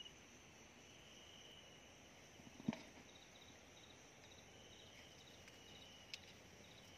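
Night insects trilling faintly in short pulsed bursts, with one sharp knock about three seconds in and a smaller click near the end.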